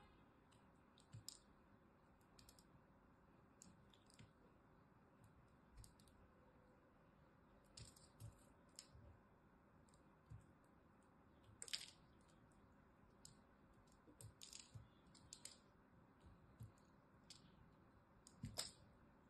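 A small blade cutting and prying into a lump of crumbly pressed soap, giving soft crisp crunches and clicks at irregular intervals, with two louder cracks about midway and near the end.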